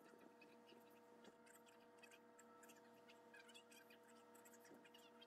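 Near silence: a faint steady electrical hum, with faint scattered clicks and rustles from small plastic model-kit parts and a sprue being handled.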